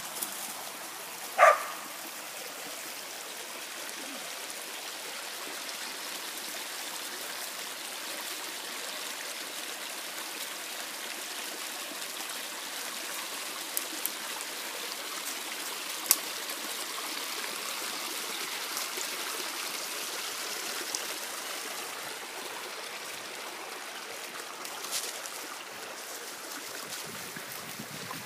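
Small shallow stream running steadily over stones. About a second and a half in there is one short, loud dog bark, and a few sharp clicks follow later on.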